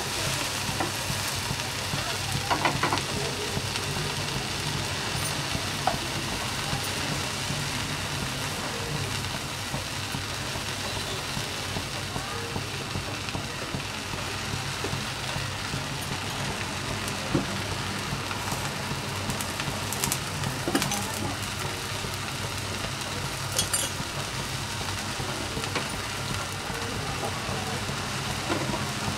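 Onion uttapam frying in oil on a hot flat dosa pan, topping side down after the flip: a steady sizzle, with a few light clicks now and then.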